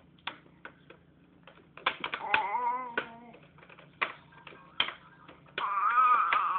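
Sharp plastic clicks and taps from a baby's hands working the toy steering wheel on a Jumperoo bouncer's tray. A baby's voice comes in briefly about two seconds in, then louder and wavering near the end.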